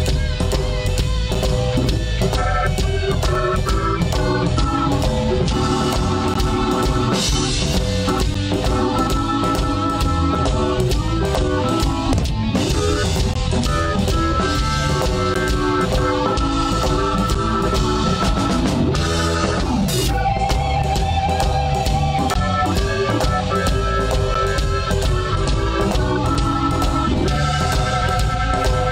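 Live blues band playing an instrumental passage: electric guitar over organ and a drum kit with a steady beat.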